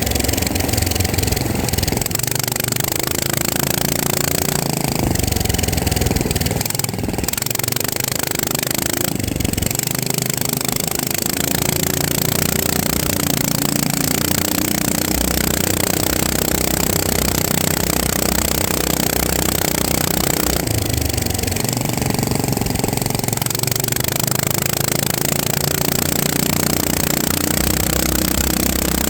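FPV drone's electric motors and propellers buzzing continuously, the pitch rising and falling several times as the throttle changes.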